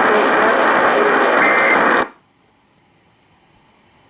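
Radio receiver static, a dense hiss, that cuts off abruptly about two seconds in, leaving faint dead air.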